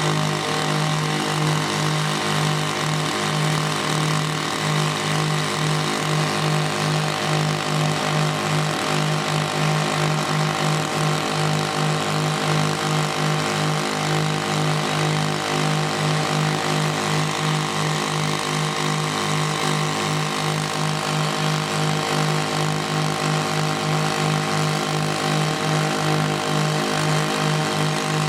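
Small engine of a portable diamond core drilling rig running steadily at a constant speed, with an even throb.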